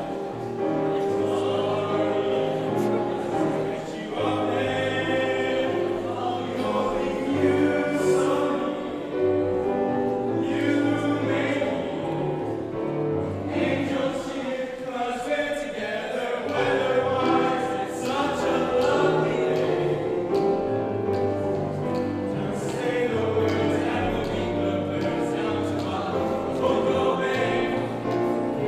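A choir singing, holding sustained chords with moving lines.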